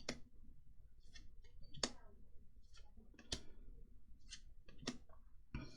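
Trading cards being flipped through one at a time in the hands: a sharp card snap about every second and a half, with faint sliding and rustling between.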